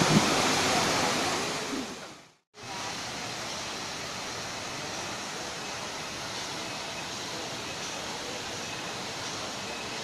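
Rushing water of the Banyumala twin waterfalls, a steady roar that fades out about two seconds in. After a short gap, a quieter steady hiss of outdoor ambience follows.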